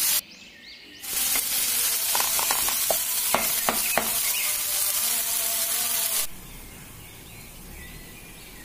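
Chopped onions and tomatoes frying in sesame oil in a frying pan, sizzling while a spatula stirs them, with a few sharp clicks of the spatula on the pan about three to four seconds in. This is the masala base cooking down until the tomatoes go mushy. The sizzle drops out briefly just after the start and falls to a faint hiss about six seconds in.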